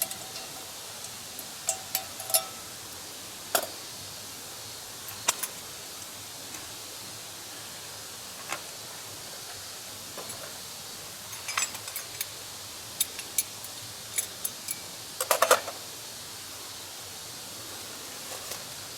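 Wood campfire crackling: irregular sharp pops and snaps over a steady hiss, with a louder cluster of snaps near the end.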